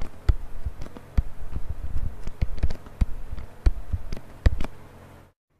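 A stylus tapping and knocking irregularly on a tablet or pen-tablet surface while handwriting, with a dull thud under some taps; it cuts off abruptly about five seconds in.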